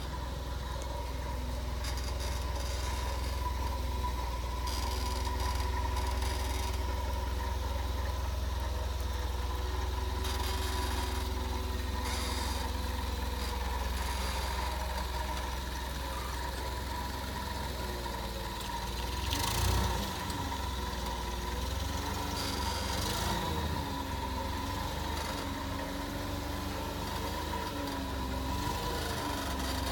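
The engine of an LPG-fuelled Daewoo G20SC forklift runs steadily while the truck works. There is a brief louder noise about twenty seconds in, and the pitch wavers up and down through the last third.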